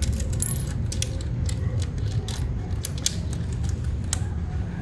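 Small electric gear motor of a remote-control model construction vehicle whirring steadily, with many irregular sharp plastic clicks and clacks over it.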